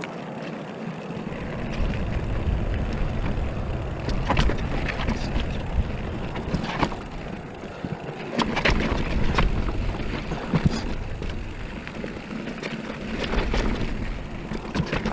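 Riding noise of a Haibike mountain bike descending a dirt trail: wind buffeting the camera microphone and knobby tyres rolling over dirt, broken by scattered sharp clicks and rattles from the bike and loose stones.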